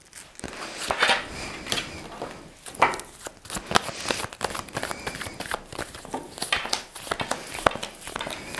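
Tarot cards being shuffled and handled, a run of irregular papery slaps and rustles.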